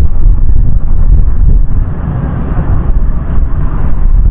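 Wind buffeting the microphone: a loud, uneven low rumble, dipping a little about halfway through.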